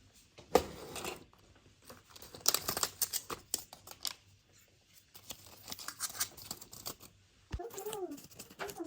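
Handling noises: irregular clicks, scrapes and short rustles of small objects being moved and worked, with a brief pitched vocal sound near the end.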